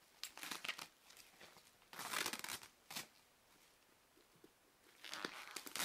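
Bubble wrap crinkling and tearing as it is pulled off a stand mixer, in a few short bursts with pauses between.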